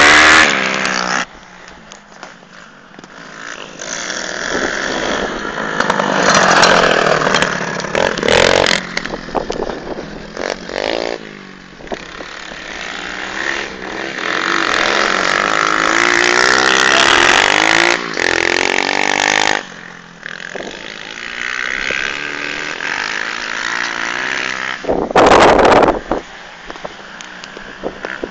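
Two pit bikes racing, their small engines revving up and down with the throttle and gear changes, loud as a bike passes close at the start, then fading and swelling as they circle the track. A brief loud burst near the end.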